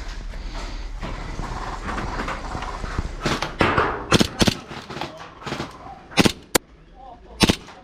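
Gel blaster shots: about eight sharp, irregularly spaced cracks, starting about three seconds in, after a steady rustling noise.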